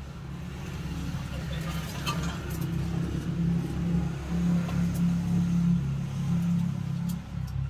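Motor vehicle engine running close by, a low rumble that grows louder toward the middle and eases off near the end.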